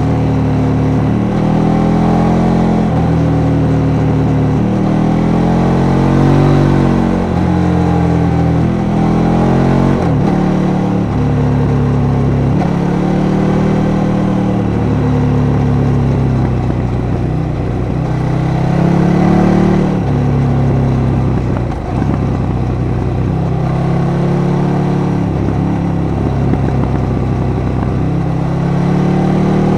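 KTM 1290 Super Duke R's V-twin engine, heard from the rider's seat, revving up and dropping back again and again as the bike accelerates and slows through a string of bends. The engine note briefly cuts out about two-thirds of the way through.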